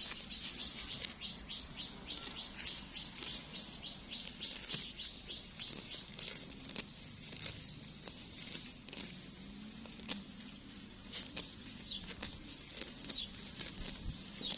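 Small birds chirping: a rapid series of short, high repeated notes, about three a second, through the first half, then fewer scattered calls. A few sharp clicks or rustles come in between.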